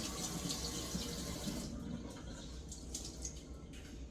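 Water running from a tap, shutting off about a second and a half in, followed by a few light clicks and knocks.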